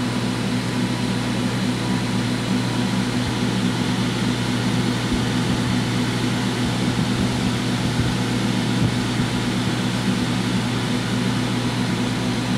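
Cooling fans of a homebuilt six-tube 3-500Z linear amplifier running steadily with a low hum, blowing air over the tubes as they cool down after keying.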